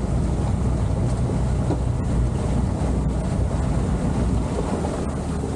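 Boat under way on outboard power: steady engine drone, water churning between two hulls lashed side by side, and wind buffeting the microphone.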